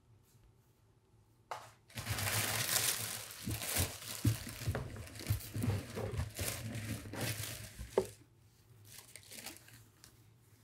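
Brown kraft wrapping paper crinkling and rustling as it is unfolded by hand. It starts about two seconds in and dies down to faint rustles about eight seconds in.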